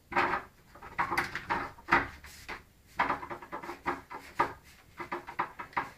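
Front-door letterbox flap rattling and clacking as post is pushed through the slot, in several bursts of quick knocks.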